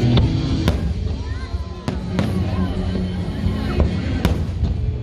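Fireworks going off overhead, several sharp bangs a second or so apart, over music and people's voices.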